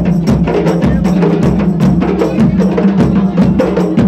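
Music with fast, busy percussion: many strikes a second over a steady low tone.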